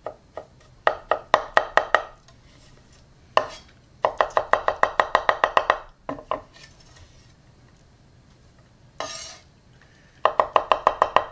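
Chef's knife rapidly mincing garlic on a wooden cutting board: three runs of quick chops, about eight a second, with short pauses between them.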